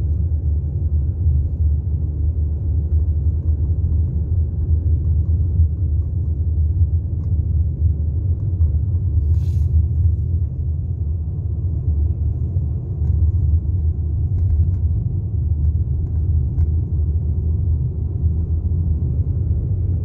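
Steady low rumble of a car driving on a paved road, heard from inside the cabin: engine and tyre noise with no change in speed.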